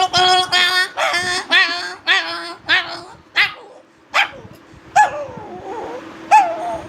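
A man's vocal imitation of a big dog and a puppy fighting: a fast run of barks for about three seconds, then a few single sharp yelps that drop in pitch.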